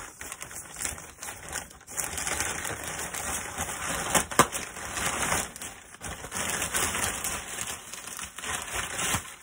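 Plastic packaging, bubble wrap and a poly mailer bag, crinkling and rustling as it is handled, a dense run of small crackles with a sharper crack about four seconds in.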